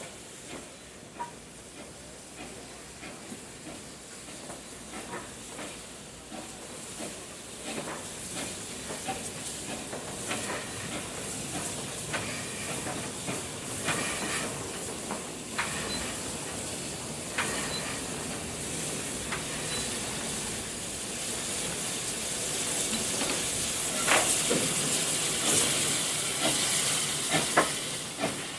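A line of coupled steam tank locomotives being shunted slowly past by Austerity 0-6-0ST saddle tank WD 75008 Swiftsure: steady steam hiss with scattered sharp knocks and clanks from the moving engines. It grows louder towards the end as the working engine draws level.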